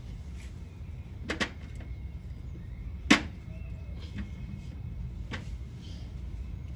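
Rubber cush-drive damper blocks being worked out of a 1968 Honda CT90 rear wheel hub by hand, with a few light clicks just over a second in and one sharp knock about three seconds in, over a steady low rumble.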